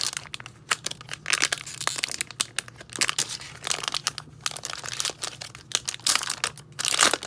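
Foil wrapper of a 2020 Topps Series 1 baseball card pack crinkling and tearing as it is opened, in many short crackles with a louder burst near the end.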